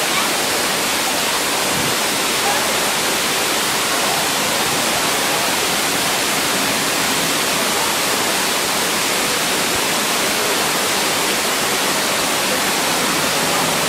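Steady, even rushing hiss of outdoor city-street ambience, with faint distant voices now and then.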